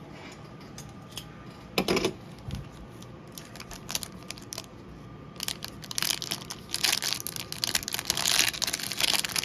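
Trading-card packaging being torn open and crinkled: a couple of light taps about two seconds in, then dense crackling and crinkling of the wrapper from about five seconds in.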